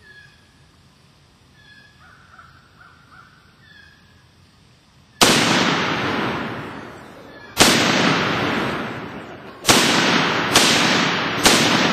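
M1 Garand rifle firing .30-06 ball ammunition: five shots, the first about five seconds in, the next two about two seconds apart, the last three about a second apart, each followed by a long echoing decay. Before the shooting, a bird calls faintly a few times.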